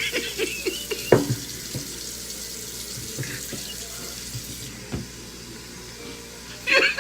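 Kitchen tap running into a sink as raw chicken is washed by hand, a steady hiss of water with a few knocks and splashes from handling the meat, the strongest about a second in.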